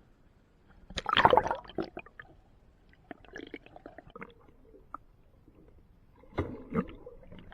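Water gurgling and sloshing heard from a camera held underwater, with a burst of splashing about a second in, scattered small pops and crackles, and another splashy burst near the end.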